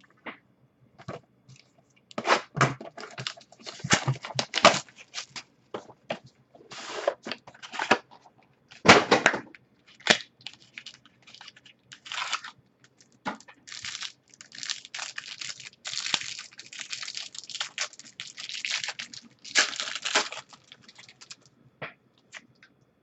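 Trading-card boxes and packs being handled and opened by hand: irregular rustling, scraping and tearing of cardboard and wrappers, with a sharper knock a little before halfway.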